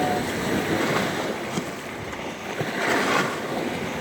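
Sea waves surging and washing, with wind on the microphone. The surf swells louder about a second in and again near the end.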